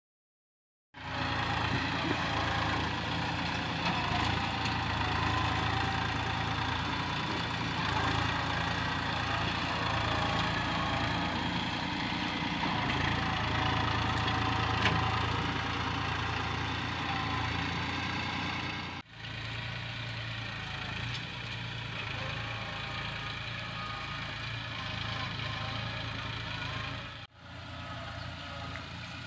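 Farm tractor's engine running steadily under load as it pulls a plough through the soil, starting about a second in, with two brief dropouts later on.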